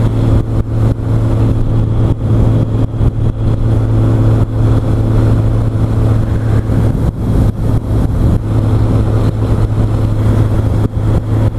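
Motorcycle engine running at a steady cruise, heard through a helmet-mounted microphone with wind rushing and buffeting over it.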